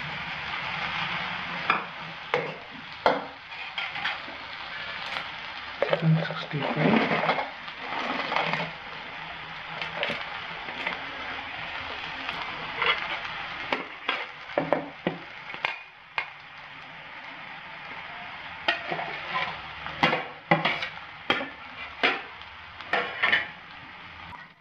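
Noodles sizzling in a frying pan while a steel spoon stirs and tosses them, with repeated sharp clinks and scrapes of the spoon against the pan.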